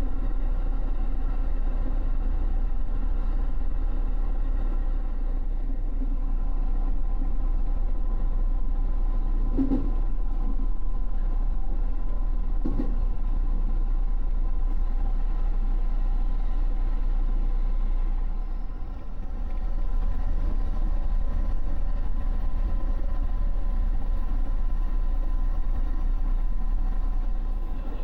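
Electric commuter train running, heard from inside the car: a steady low rumble with a faint hum above it, and a couple of light knocks about ten and thirteen seconds in.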